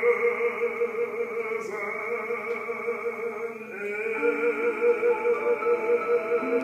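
A man singing, holding two long high notes with a wide, even vibrato; the second note begins about halfway through, with steady lower notes sounding beneath it.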